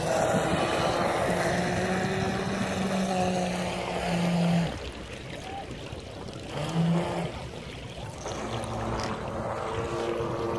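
Small motor of a radio-controlled model waverunner running on the water, its whine mixed with wake splash and wind on the microphone. About four and a half seconds in it drops off sharply, gives a short burst near seven seconds, then picks up again.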